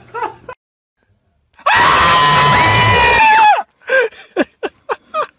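A long, high-pitched scream of fright, held at one pitch for about two seconds and dropping off at the end. It is followed by several short bursts of laughter.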